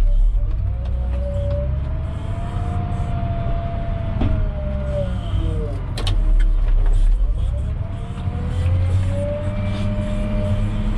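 Volvo wheel loader's diesel engine running under load, heard from inside the cab: a low rumble with a whine that climbs as the revs come up, eases off about five seconds in, then climbs again from about seven seconds in. A couple of short clicks or knocks in the middle.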